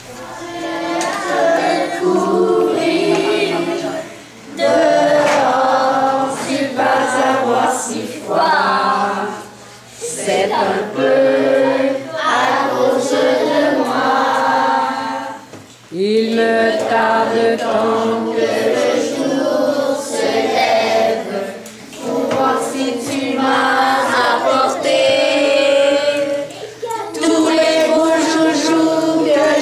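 A group of children singing together as a choir, in phrases of a few seconds with short breaths between them.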